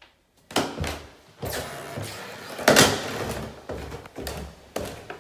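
Footsteps thudding through a house, about one to two a second, with a louder, sharper knock near the middle.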